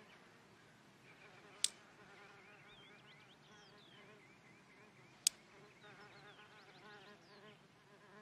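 A housefly buzzing around, its pitch wavering as it moves, with two sharp clicks of chopsticks snapping shut at it, about a second and a half in and again about five seconds in.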